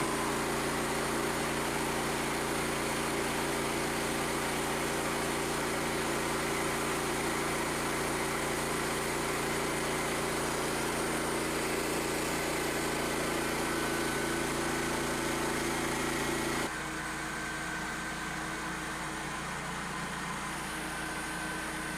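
Gas engine of a Frontier OS27 portable sawmill running steadily. About seventeen seconds in, the sound drops suddenly to a quieter, steady hum.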